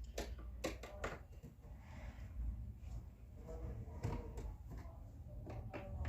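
Handling noise: a scatter of sharp clicks and knocks, several in quick succession near the start and more about two thirds of the way in, over a steady low hum.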